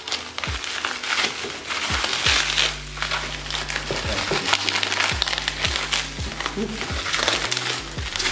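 Continuous crinkling and rustling of shredded paper packing filler and plastic bubble wrap as hands dig a wrapped jar out of a cardboard box. Background music with a low bass line and a recurring low beat plays underneath.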